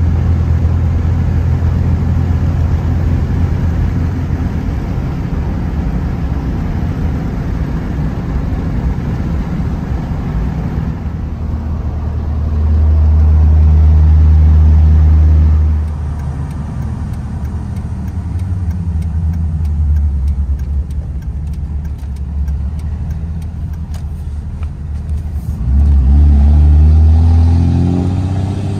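Cummins turbo-diesel pickup driving on the road, heard from inside the cab: a steady low engine and road drone that swells louder twice, about halfway through and again near the end, the second time with the engine note rising.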